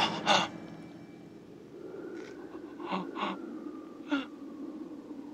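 A man's short, sharp gasping breaths, about five in a row, over a faint steady low hum.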